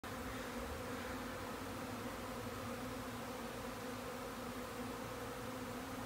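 A swarm of honeybees in flight, many wings buzzing together in a steady drone.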